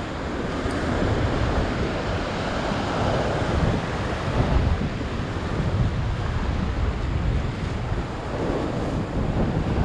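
Ocean surf surging and foaming against a rock ledge, a steady wash, with wind rumbling on the microphone.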